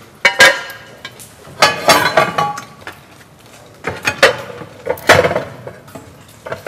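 Kitchen utensils and dishes clinking and clattering on a counter in several short bursts, with quiet gaps between them.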